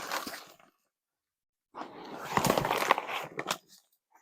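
Compost and soil rustling and spilling as a heavy plastic pot of potatoes is tipped and emptied: a brief scrape at the start, then a louder, longer crackly rush of compost sliding out from about two seconds in.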